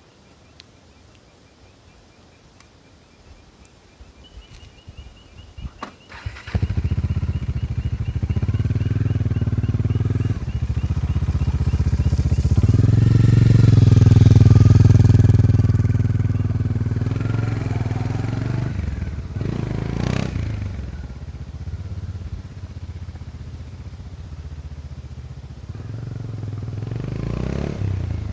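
Bajaj Dominar 400 single-cylinder engine through its stock exhaust, started about six seconds in after a few seconds of quiet with faint ticking and clicks. It then idles and is revved several times, the longest rev rising and falling in the middle.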